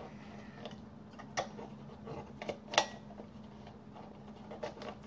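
Papercraft pieces being handled as paper tabs are pushed into slots: scattered light clicks and taps of paper, the sharpest about three seconds in.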